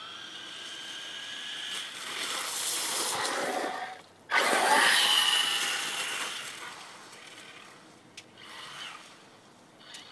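Axial Exo Terra electric RC buggy driving through leaves: a motor whine with tyre noise builds over about four seconds, cuts out briefly, then comes back suddenly at its loudest with a slightly falling whine and fades away.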